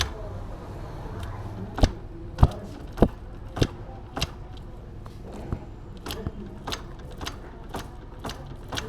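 Regular mechanical clicking, about one click every half second to second, loud at first and then fainter, from a KTM Duke 390's drivetrain as the rear wheel is turned by hand in sixth gear to rotate the engine for setting the valve timing.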